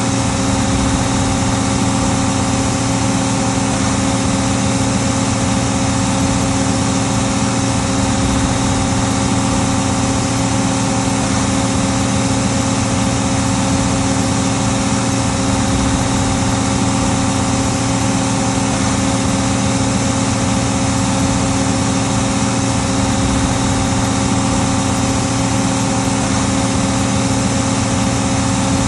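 Case 1570 tractor's six-cylinder diesel engine running at a steady speed under load while pulling a five-bottom plow, an even, unchanging drone.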